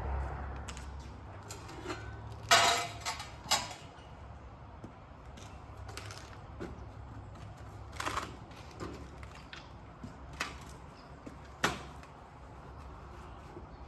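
Scattered knocks and clanks of hand tools and metal being handled during HVAC installation work, loudest about two and a half seconds in, with others near the middle and near the end, over a low steady hum.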